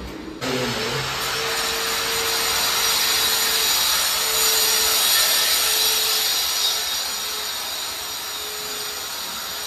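A power tool running with a harsh, steady hiss that starts suddenly about half a second in and eases a little over the last few seconds.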